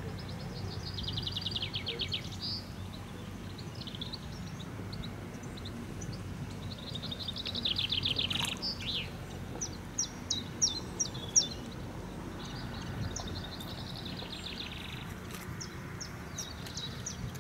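Small songbirds singing: three rapid, high trills of repeated notes, with a run of short, sharp, separate high notes between the second and third. A steady low rumble runs underneath.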